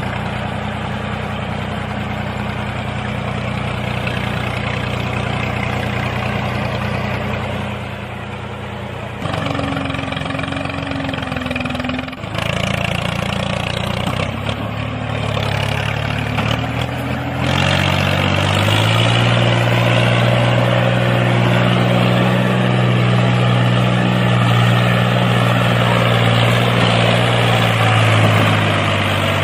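Tractor engine running steadily at a low pitch. Its note shifts a couple of times, then it runs louder and heavier from a little past halfway.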